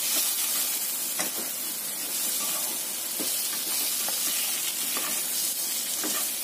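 Diced potato and eggplant sizzling in hot oil in a nonstick frying pan, stir-fried with a slotted spatula that scrapes across the pan every second or two. This is the final toss, cooking until the added garlic turns fragrant.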